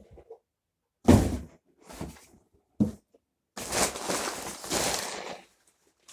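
Cardboard box and packaging being handled: a loud thump about a second in, two lighter knocks, then about two seconds of rustling and scraping.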